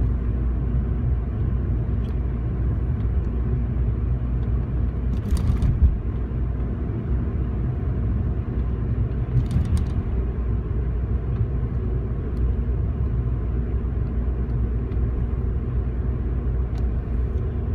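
Car cabin noise while driving at a steady speed: a constant low rumble of engine and tyres on the road. Two brief rustles or clicks, about five seconds in and again near ten seconds.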